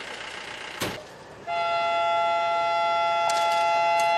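A train horn gives one long, steady blast of two notes together, starting about a second and a half in and running to the end. A single sharp knock comes just under a second in.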